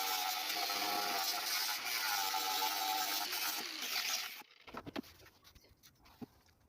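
Steady loud hiss with a faint wavering tone in it, cutting off suddenly about four and a half seconds in, followed by a few light taps.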